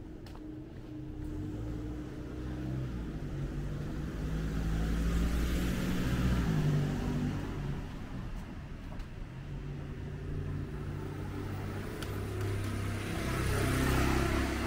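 Motor vehicles passing along a street, engines and tyres swelling up and fading away: one pass peaks about midway, a second near the end.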